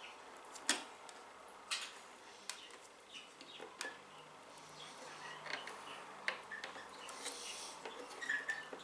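Faint clicks and light plastic handling noises as computer parts are fitted by hand onto a motherboard, with a handful of sharp clicks a second or so apart.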